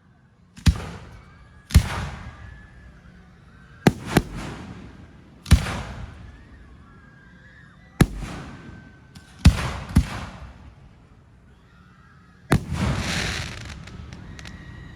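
Fireworks display bursting: a string of about nine sharp bangs at uneven intervals, some in quick pairs, each trailing off in an echo. The last, near the end, has a longer rumbling tail.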